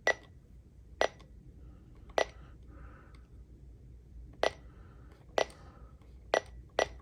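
Seven short, sharp clicks, each with a brief high pip, spaced irregularly about a second apart: buttons being pressed on a NOAA weather radio receiver, presumably to step through its alert log.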